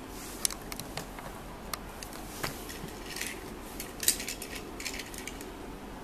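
Hands handling a Hot Wheels die-cast toy car and plastic blister packaging: scattered light clicks and clacks mixed with short crinkly rustles, with a few sharper clicks among them.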